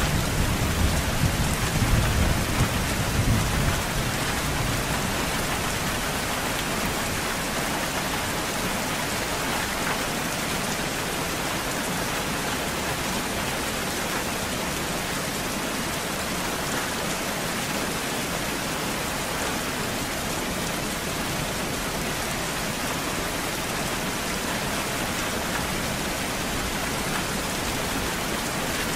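Steady rain falling, with a low rumble of thunder fading out over the first few seconds.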